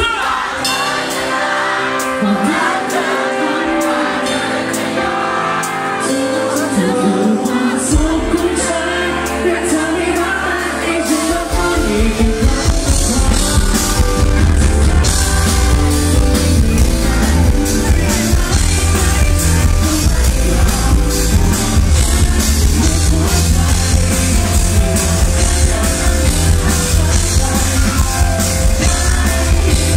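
Live pop-rock band with a male singer: the voice carries the melody over a sparse accompaniment, the bass comes in about eight seconds in, and the drums and full band join about three seconds later.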